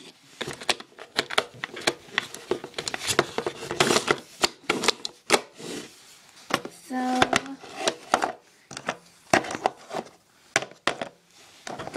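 Plastic storage boxes being handled and set down on a wooden table: a quick, irregular run of clicks, taps and knocks.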